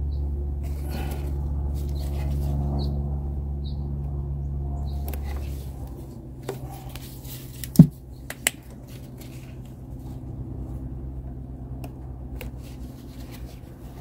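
Plastic and metal engine parts being handled and pushed into place on a generator, with a few sharp clicks and knocks; the loudest snap comes about eight seconds in. A steady low hum lies under it and drops away about six seconds in.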